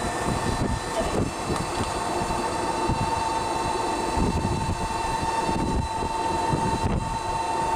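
A moving vehicle carrying the camera: a steady high whine over a low, uneven rumble of road and wind noise.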